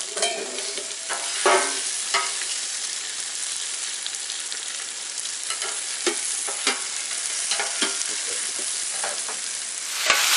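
Sliced potatoes and onions sizzling in oil on a flat-top griddle under a metal basting dome: a steady frying hiss with scattered sharp pops and ticks.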